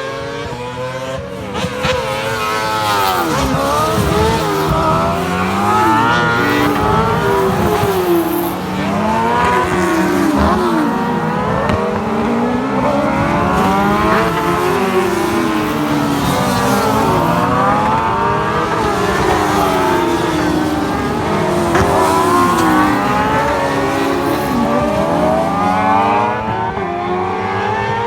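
Several racing sidecar outfits' engines passing at speed one after another, their pitches repeatedly rising and falling as they rev, change gear and go by. The sound builds over the first couple of seconds and eases near the end.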